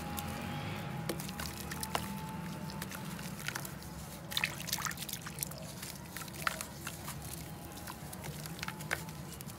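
A wet block of red dirt crumbling in hands over a basin of muddy water: gritty chunks break off and drop in with small splashes and drips, in irregular crackles. A steady low hum runs underneath.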